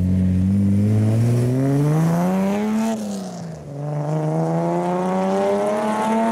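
Classic Datsun Z coupe accelerating hard: its engine pitch climbs, drops at an upshift about three seconds in, then climbs again through the next gear.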